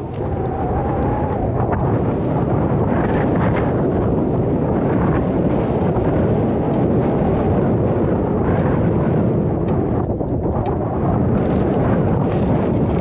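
Strong wind buffeting the microphone, a loud, steady rumble with no engine note or voices in it.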